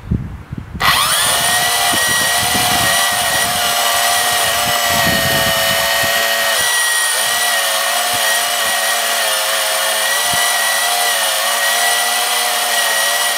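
Electric DC gear motors of a tracked robot vehicle starting up abruptly about a second in and running with a steady high whine and gear noise. The pitch dips briefly a few times as the load changes.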